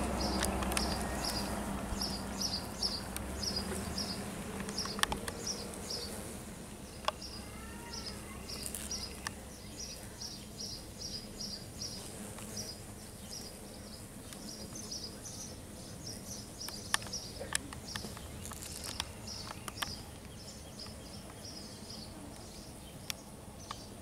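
Outdoor ambience: a high-pitched chirp repeated over and over, in quick pairs about twice a second, with a few sharp clicks. A low hum fades out in the first few seconds.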